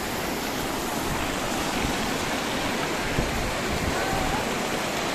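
Shallow mountain river rushing and splashing over boulders: a steady, even roar of running water.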